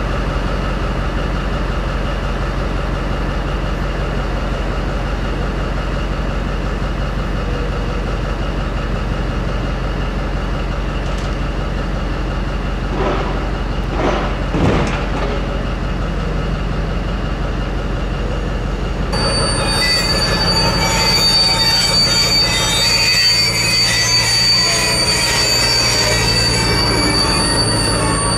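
A steady low engine drone with a couple of knocks in the middle. About two-thirds of the way in, the high-pitched brake and wheel squeal of an ÖBB class 2143 diesel locomotive sets in: several shrill tones at once, one of them held steady.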